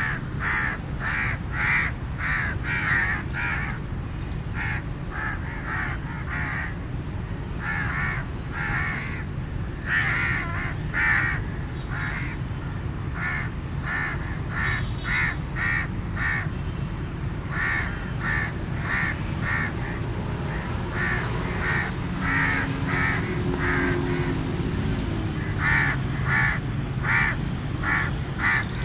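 Crows cawing: many short harsh caws in quick runs, several a second at times, over a steady low background rumble.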